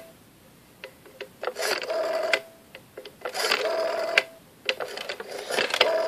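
Rotary telephone dial being dialed three times: each time a few clicks as the finger turns the dial round, then the dial spinning back on its own with a whirring buzz about a second long.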